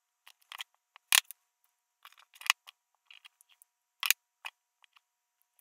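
Hands handling a vinyl device skin, its backing sheet and the device on a wooden table: a scatter of short clicks and rustles, loudest about a second in, again midway and about four seconds in.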